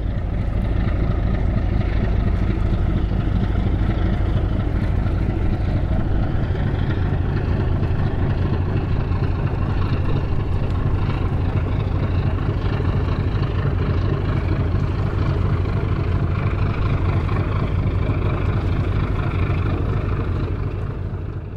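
Diesel engines of a pusher tug driving a barge along a canal: a steady deep drone with a hiss over it, fading in at the start and out at the end.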